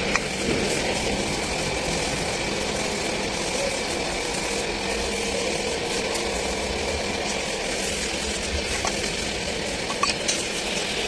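Rebuilt tractor diesel engine idling steadily, with a few light clicks near the end.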